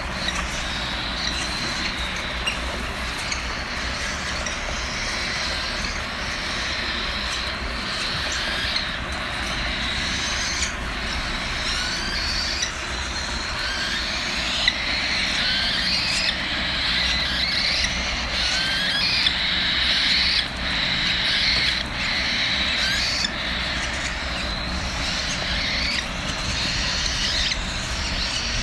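Cockatiel chicks begging for food: a raspy chorus of food calls with many short, squeaky rising notes, growing busier about halfway through.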